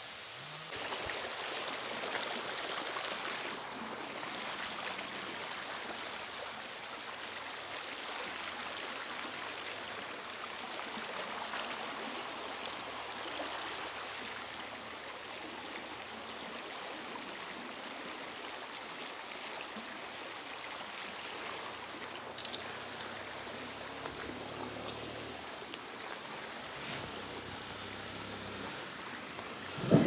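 Small muddy forest creek flowing, a steady rush of running water.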